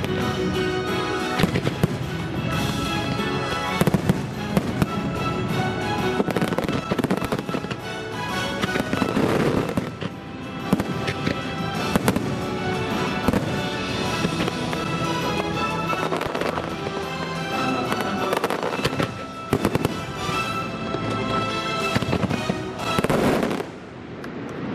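Aerial fireworks bursting and crackling in quick succession over the show's loud soundtrack music, with one big burst near the end.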